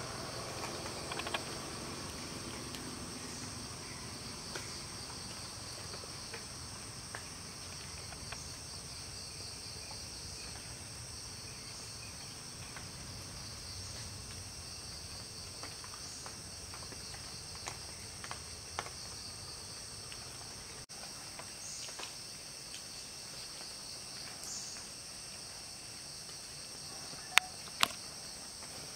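Steady high-pitched chorus of insects trilling without a break. Two sharp clicks stand out about a second and a half before the end.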